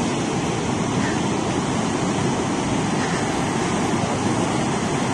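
Swollen, muddy river in flood rushing over a low bridge and churning where it spills off the edge: a steady, loud rush of water.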